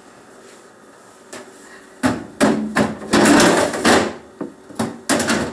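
Quiet room for about two seconds, then a run of sharp knocks and clattering, objects being handled and bumped against hard surfaces.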